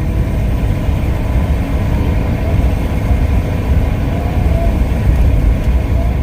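Kenworth W900L semi truck's diesel engine running with steady low rumble and road noise heard from inside the cab, easing off near the end.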